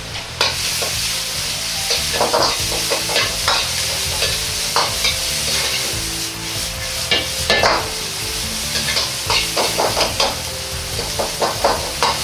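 Vegetables sizzling in oil in a hot iron wok over a high gas flame while a steel ladle stirs and tosses them, with repeated short metallic scrapes and clinks of ladle on wok. The sizzle grows louder about half a second in.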